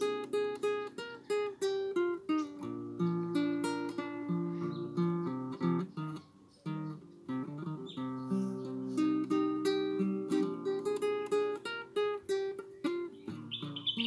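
Solo classical acoustic guitar played by hand in an improvised passage: picked notes and strummed chords, repeated in a steady pattern, briefly dropping softer about six seconds in.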